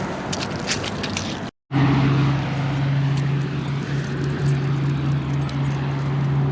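Outdoor street noise with light clicks, then a brief cut-out about one and a half seconds in, after which a steady low hum like a motor vehicle's engine running holds at an even pitch.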